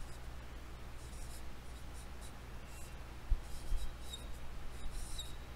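Dry-erase marker writing on a whiteboard: a run of short scratchy strokes, a few with a faint high squeak. There is a low bump a little past three seconds in, over a steady low hum.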